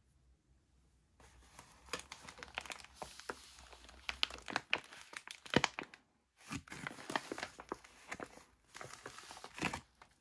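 Plastic MRE meal bag crinkling and crackling as it is picked up and handled, with a short break a little after six seconds in.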